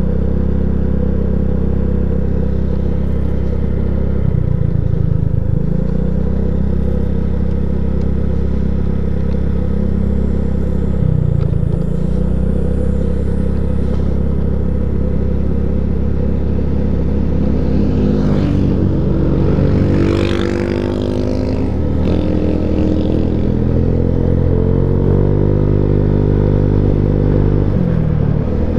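Single-cylinder engine of a SYM Jet 4 125 cc scooter running under way, heard from the rider's seat. Its note dips and climbs again several times as the throttle is eased and reopened, most markedly about two-thirds through, where a hiss of air also rises.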